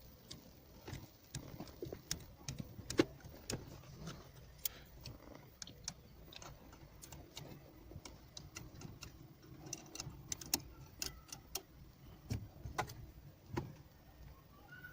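Irregular light clicks and taps from small steering-wheel horn-contact parts being handled and cleaned, with a sharper click about three seconds in.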